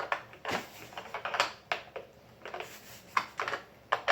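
Irregular clicks and short scrapes, about a dozen: a screwdriver being worked at a screw sunk deep in the plastic mounting base of a boxed 1:18 model car.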